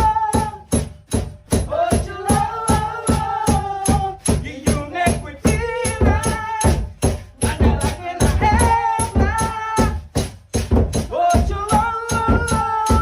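Music with a fast, even beat of about four hits a second, shaker-like percussion and a melody over it.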